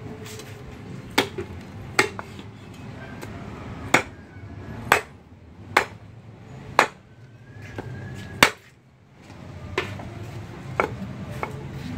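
Knife chopping on a cutting board in single sharp strikes, about one a second at an uneven pace, about ten in all.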